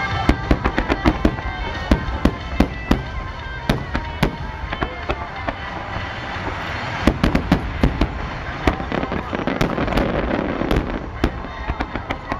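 Aerial fireworks shells bursting in a rapid starmine barrage: many sharp bangs in quick succession, densest near the start and again about seven seconds in, over a steady rush of noise.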